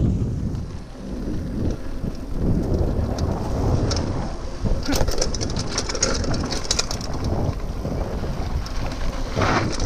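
Mountain bike rolling fast down a dirt trail: steady rumble of tyres on dirt and wind on the microphone, with a run of quick clicks and rattles from the bike over rough ground about five to seven seconds in.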